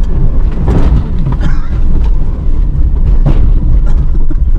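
Minivan driving over a dirt track: a loud, rough low rumble with several sharp knocks and thumps from the body and suspension.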